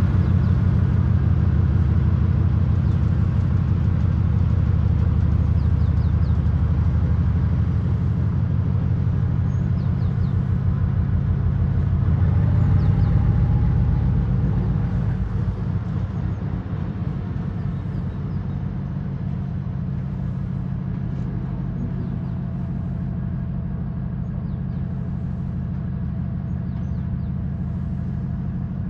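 2TE10V diesel locomotive's 10D100 opposed-piston two-stroke diesel engine running with a deep, steady throb. It swells slightly at about twelve seconds, then eases down to a quieter, steady level from about fifteen seconds in.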